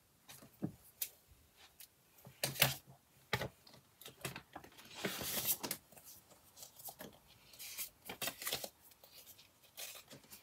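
Polymer £5 banknotes being handled and counted: crisp crinkling and rustling broken by sharp clicks and snaps, with the longest rustle about five seconds in.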